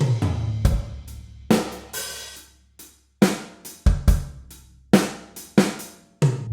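Programmed drum kit pattern of kick, snare, hi-hat and cymbal hits played through studio room reverb. Each hit leaves a decaying tail, and a low bass tone rings under some of the kicks. The pattern drops almost to nothing twice, about three seconds in and near the end.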